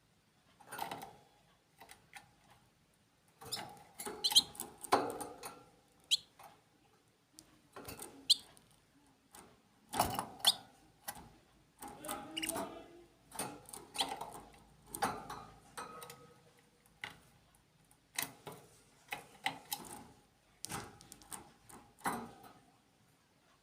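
Small birds chirping and squeaking in short, irregular calls, some rising quickly in pitch.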